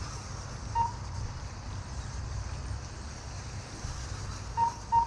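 Short electronic beeps from an RC race lap-timing system as cars cross the timing line: one about a second in and two in quick succession near the end, over a steady background hiss and low rumble.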